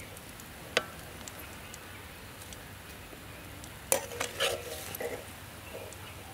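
Metal slotted spoon stirring and scraping in a steel wok of food frying in oil, over a faint steady sizzle. One sharp clink a little under a second in, then a cluster of clinks and scrapes against the pan about four to five seconds in.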